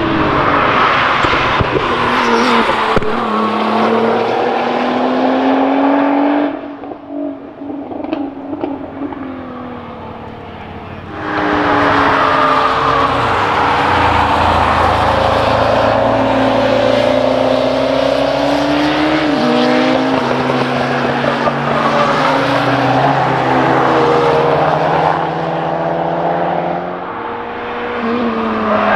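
Cars driven hard past on a race circuit, their engines revving up and dropping back through gear changes, often several at once. It goes quieter about seven seconds in, then the next cars arrive around eleven seconds.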